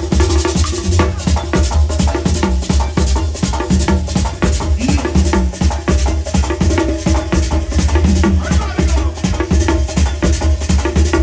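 Live band music, merengue típico: a fast, steady beat of busy percussion over a heavy bass line, with a voice in the mix.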